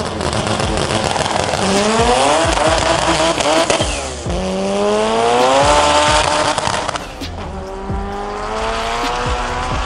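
A car launching down a drag strip and accelerating hard through the gears, tyres squealing as it leaves. The engine note climbs, drops at a shift about four seconds in, climbs again, and shifts again about seven seconds in.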